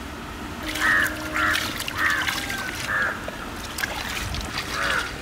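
Birds calling outdoors: a run of short, harsh calls starting about a second in and repeating every half second to a second, over water running and splashing faintly.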